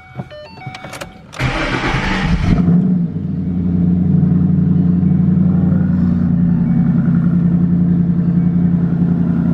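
Cold start of a Ford Mustang Boss 302's 5.0-litre V8 through its stock exhaust. After a few short beeps, the starter cranks for about a second, the engine fires and flares up, then settles into a steady fast cold idle.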